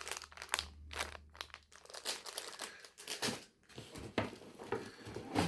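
Plastic sweet and snack packets crinkling as they are handled, with irregular crackles.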